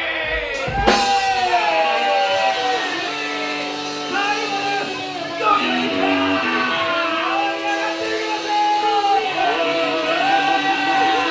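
Rock music: a voice singing over guitar, with one sharp crash-like hit about a second in.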